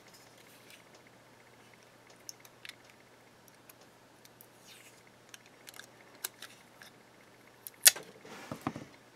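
Small clicks and handling taps as a strip of tape is cut from its roll with a utility knife and pressed over the hub of a small cooling fan to seal its plug. A sharper click comes near the end, followed by a short scratchy rustle.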